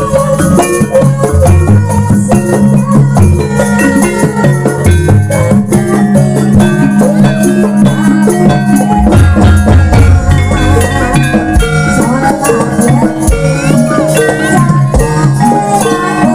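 Jaranan gamelan music played live: a steady pattern of hand drums driving the rhythm, with struck metal gong-chimes and metallophones ringing over it.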